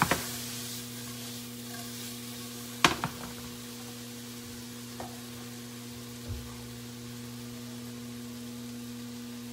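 Taco-seasoned chicken frying in a pan, sizzling steadily over a low hum. A cooking utensil knocks sharply against the pan about three seconds in, then more lightly a few times after.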